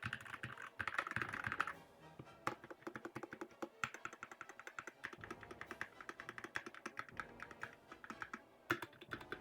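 Typing on a Red Dragon Draconic Pro mechanical keyboard fitted with used keycaps: quick, uneven runs of keystroke clacks, slightly sparser about two seconds in.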